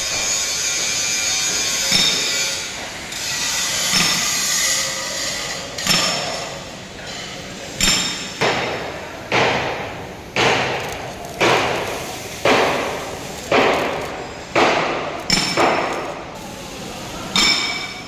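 Hammer blows on steel, each with a ringing tail, about one a second from about six seconds in. Before them there is a steady hiss, which fits the crackle of an electric arc welder.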